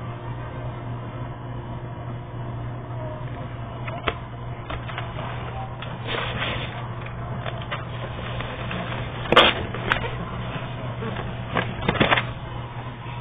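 Paper rustling and a few sharp snaps and flaps as the card pages of a pop-up book are turned and handled. The loudest snap comes about nine seconds in, with a cluster near the end, over a steady low hum.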